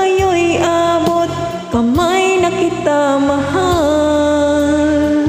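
A woman singing a Tagalog love ballad into a handheld microphone over a karaoke backing track, holding long notes with slides between them. Her voice stops near the end, leaving the backing music.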